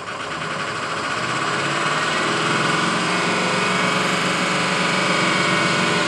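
Ford 6.0 Power Stroke V8 diesel engine revved up from idle and held at raised RPM, the sound building over the first couple of seconds and then holding steady. The engine has a misfire, which the technician traces to a compression problem in the base engine.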